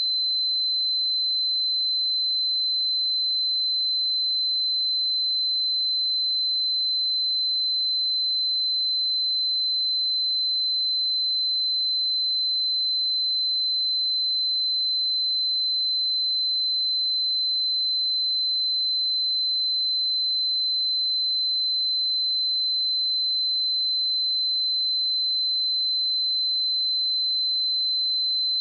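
A pure 4062 Hz sine-wave test tone, a single high-pitched steady tone held at constant level.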